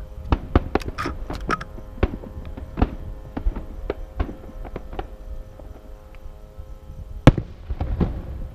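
Aerial fireworks going off: an irregular run of sharp bangs, quick and close together at first, then sparser, with one loudest bang about seven seconds in.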